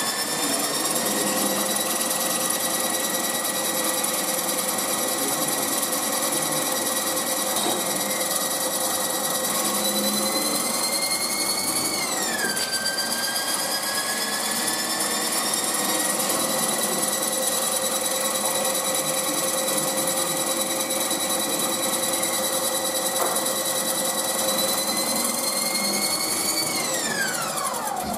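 Haas TL-2 CNC lathe running under cut: a steady whine from the spindle drive over the hiss and chatter of the tool cutting the workpiece. The whine's pitch slowly rises, drops back about twelve seconds in, climbs again, and near the end falls away as the spindle slows down.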